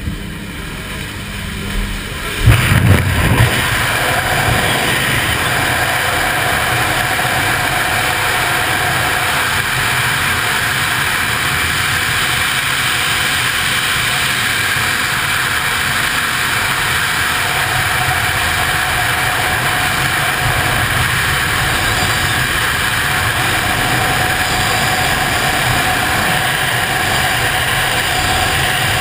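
Loud, steady rush of freefall wind over a helmet-mounted camera. About two to three seconds in, a sudden gusty blast as the jumper leaves the open door of the jump plane, with the plane's cabin noise before it.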